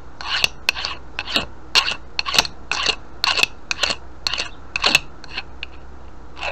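Hand file rasping back and forth over a small steel pin held in a bench vise, in quick even strokes of about two to three a second, taking the burrs off a freshly drilled 4 mm hole.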